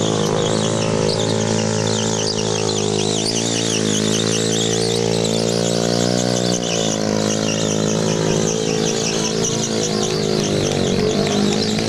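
Small stunt motorcycle's engine held at high revs while its rear tyre squeals against the pavement in a burnout. The engine pitch climbs about four seconds in and drops sharply near seven seconds.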